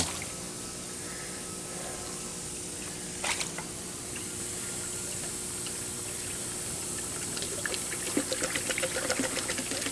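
Water running in concrete fish tanks during a water exchange, a steady rushing trickle with a low steady hum beneath it. A single splash about three seconds in, and a patter of small splashes and drips from about seven seconds on.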